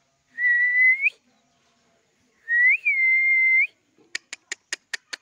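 Two long, clear whistles held at one pitch, the first rising slightly at its end, the second rising and dipping at its start. Then, near the end, a quick run of sharp clicks, about seven a second.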